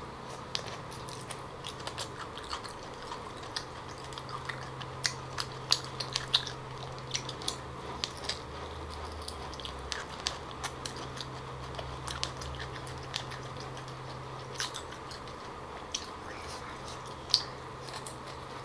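Close-miked chewing of lobster meat: many small wet mouth clicks and smacks at uneven intervals, over a faint steady low hum.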